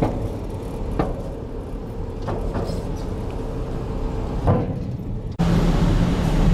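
Car rolling slowly onto a ferry, its rumble broken by a few sharp clunks as the wheels cross the loading ramp. About five seconds in it changes suddenly to a louder, steady low hum.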